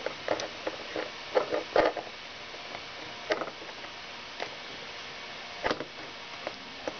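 Scattered light clicks and knocks over a steady hiss, with a cluster in the first two seconds and single ones later: hands handling the circuit boards and a cable connector.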